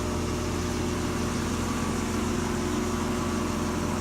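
Outdoor misting air-conditioner unit running with a steady, loud mechanical hum made of several held tones.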